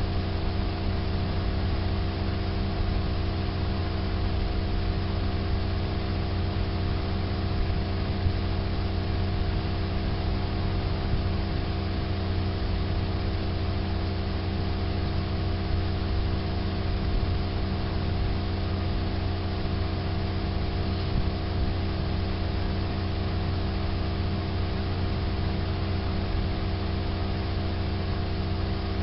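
A steady background hum of several held low tones over a faint even hiss, unchanging in pitch and loudness.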